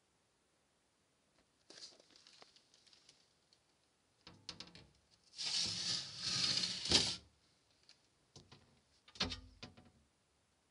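Bursts of rustling and scraping with a few sharp clicks. The loudest burst lasts about two seconds in the middle, and a shorter one comes near the end.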